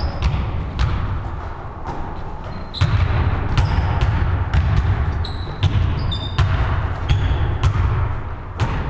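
A basketball bouncing on a wooden gym floor amid players' footfalls, irregular knocks that echo in a large hall, with a few short high sneaker squeaks about two-thirds of the way through.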